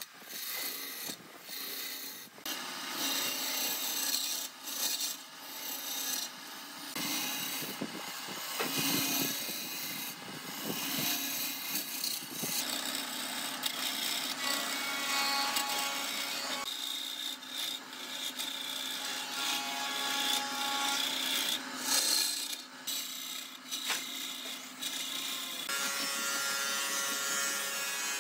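A tool scraping and rasping against wood in uneven strokes, with short breaks between them. Some faint steady tones come in during the second half.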